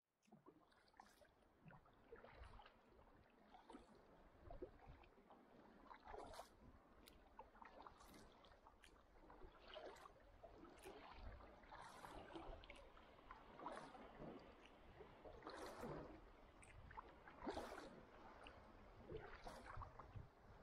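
Faint kayak paddle strokes: soft splashes and trickling water as the blades dip and pull through the water every second or two.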